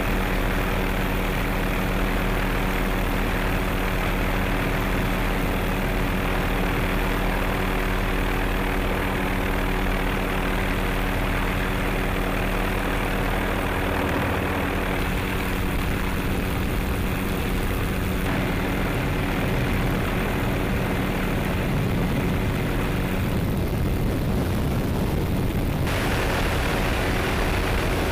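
Helicopter in flight, its turbine engine and rotor running steadily with a constant hum of several even tones. The sound changes character a little about two-thirds of the way through and again near the end.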